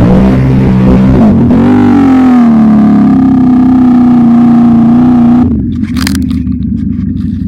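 ATV engine revving up and held at high revs, then backing off abruptly about five and a half seconds in to a lower running note with scattered sharp clicks and crackles.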